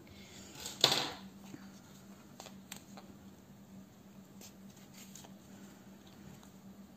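Faint handling sounds of dark yarn being pulled through a crocheted toy with a tapestry needle: a short rustle about a second in, then a few light clicks and scrapes.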